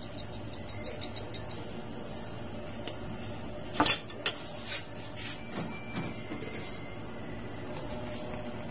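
Black pepper shaker rattling in quick shakes, about six a second, for the first second and a half: the shaker is nearly empty. Then a sharp clink of metal cookware a few seconds in, followed by a few lighter knocks.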